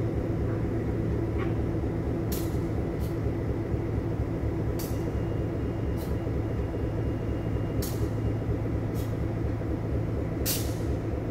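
Diesel freight locomotive idling while the train stands stopped: a steady low engine rumble, with brief high-pitched ticks every second or two.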